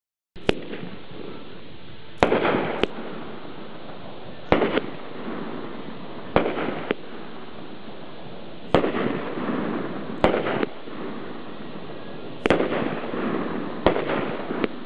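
A 16-shot Cutting Edge 'Magic' firework cake firing, starting about half a second in: sharp reports of shells launching and bursting, about one every one to two seconds, each trailing off in a short echo.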